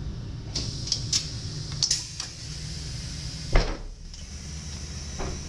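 ICMm intercity train passenger door opening after its button is pressed: a quick series of clicks and short hisses from the door mechanism over a low steady hum, then one heavy thump about three and a half seconds in.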